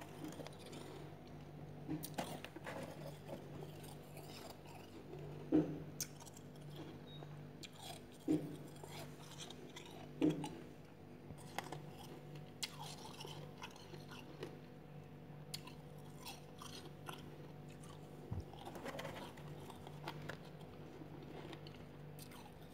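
Soft freezer frost being crunched and chewed, in scattered short crunches, the loudest a little after five, eight and ten seconds in. A steady low hum runs underneath.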